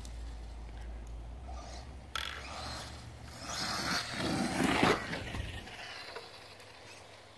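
Brushless electric Redcat MT10E 4x4 RC monster truck driving away across grass at full throttle: its motor and tyres make a rushing noise that comes in surges, loudest about four to five seconds in, then fades as the truck moves off.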